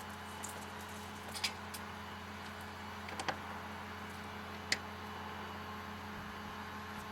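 Three light, sharp clicks spread over several seconds as screws are snugged down inside an RV refrigerator, over a steady low hum.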